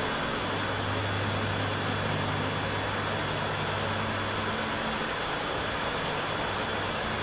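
Two pedestal electric fans running, making a steady rush of blown air with a low hum underneath.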